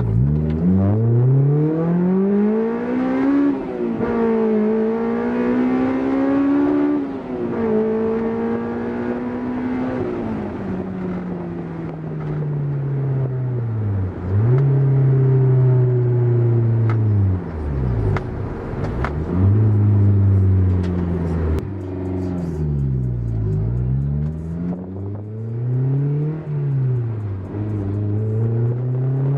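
Honda S2000's 2.0-litre four-cylinder engine through a J's Racing 70RS exhaust with a decat test pipe, the revs climbing and falling again and again with several sudden drops in pitch.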